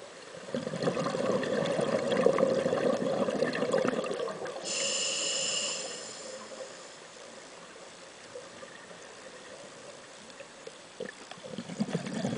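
Scuba diver breathing through a regulator underwater: a rush of exhaled bubbles for about four seconds, then a short hissing inhale through the regulator, a quiet pause, and the next exhale of bubbles starting near the end.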